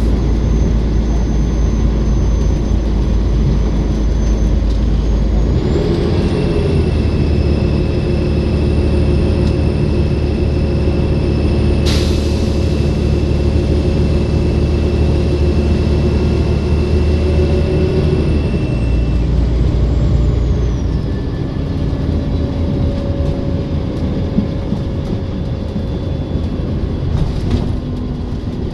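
Olympian double-decker bus engine under way with a high turbocharger whine that rises in pitch about six seconds in, holds steady, then falls away around twenty seconds in as the engine eases off. A single sharp click comes about halfway through.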